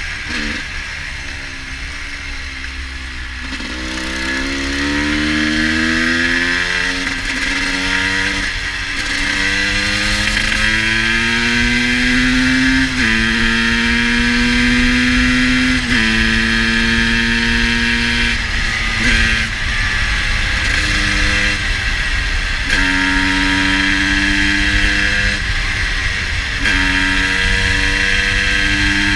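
GasGas EC 250 single-cylinder two-stroke engine pulling through the gears: its pitch climbs with the revs and drops back at each shift, several times over, over a steady low rushing noise. The uploader says the bike is running a little rich in the cold.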